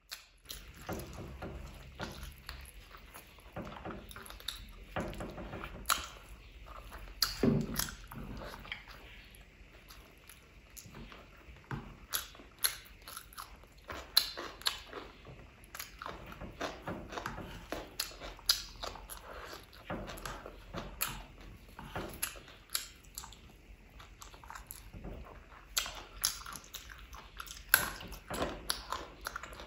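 Chewing and biting on curried chicken leg meat and rice eaten by hand, with many sharp mouth clicks at an irregular pace. One louder, lower mouth sound comes about seven seconds in.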